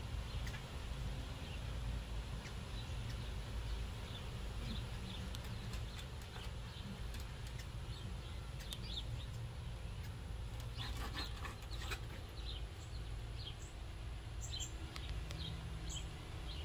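Small birds chirping in short, scattered notes over a steady low outdoor rumble, with quick, higher chirps coming more often near the end.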